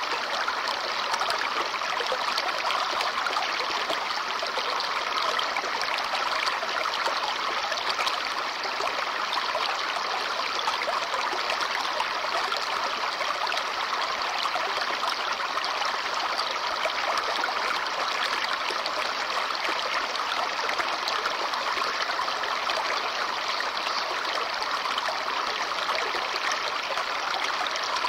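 Small brook babbling over stones: a steady, even rush and trickle of running water.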